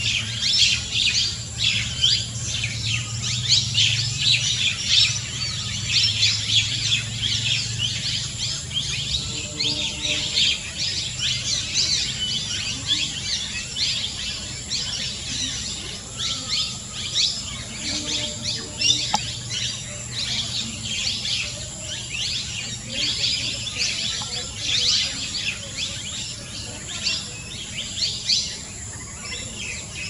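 Birds chirping in a dense, rapid, continuous chorus of short high-pitched notes, with a low steady hum underneath that fades after the first several seconds.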